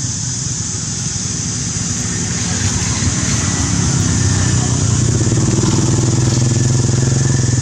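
An engine running nearby, getting louder over the second half, with a low rapid pulse, over a steady high hiss.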